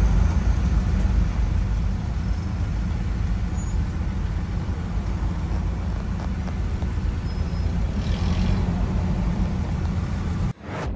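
Road traffic heard from inside a car creeping along in a traffic jam: a steady low engine and road rumble. It cuts off near the end with a short swish.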